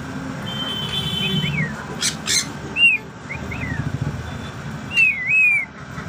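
African grey parrot whistling a string of short whistled notes that rise and fall, the longest a double-arched whistle about five seconds in. There are two sharp clicks around two seconds in.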